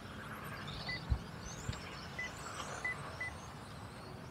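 Electric RC touring cars' brushless motors whining faintly as they run around the track, with four short high electronic beeps from the lap-timing system as cars cross the line. Two low thumps come about a second in.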